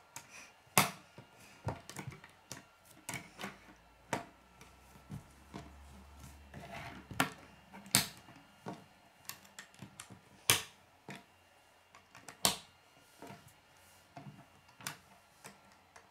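Plastic K'nex rods and connectors clicking as they are snapped together and handled against a wooden tabletop: irregular sharp clicks, with a few louder snaps about a second in, around eight seconds in and twice more later.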